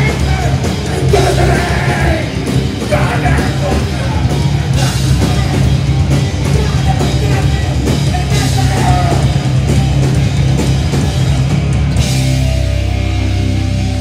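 Live grindcore band playing loud: drums and distorted guitars. About twelve seconds in, the fast playing gives way to a long held, ringing chord.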